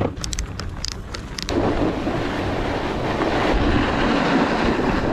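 A snowboard binding's ratchet strap clicking several times as it is tightened. About a second and a half in, a steady, louder scraping hiss with a low rumble takes over: the snowboard sliding over snow, with wind on the microphone.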